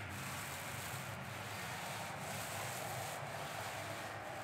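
Small 4.5-inch paint roller loaded with primer being worked back and forth over a steel truck fender: a steady rubbing swish with a short break about once a second.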